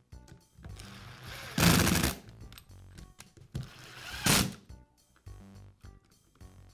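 Power screwdriver driving screws into the plastic handle housing of a DeWALT polisher, in two short runs about a second and a half and four seconds in.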